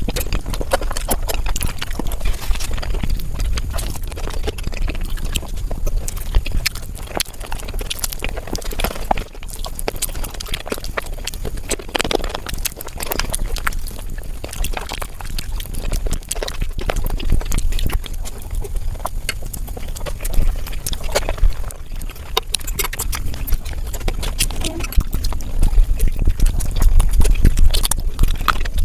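Close-miked eating sounds from mutton fat curry, sped up: a dense, rapid stream of wet chewing, smacking and slurping clicks over a constant low rumble.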